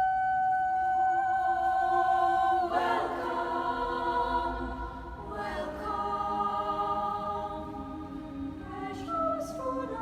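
Choir singing long held chords, moving to a new chord about three seconds in, again about five and a half seconds in, and near the end.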